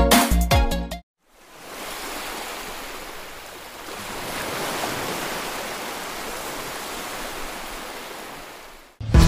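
Surf washing onto a beach: a steady rush of waves that swells about halfway through and fades away near the end. Electronic music plays for the first second and cuts off suddenly.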